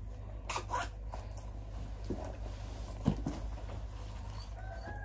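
Handling noises of a belt being put on over clothes: short scrapes and rustles about half a second in, then a couple of soft low bumps around three seconds in, over a steady low hum.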